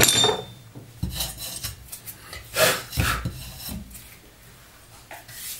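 A sharp metallic clink, then a few slow, uneven hacksaw strokes cutting through a seized steel bolt that would not unscrew.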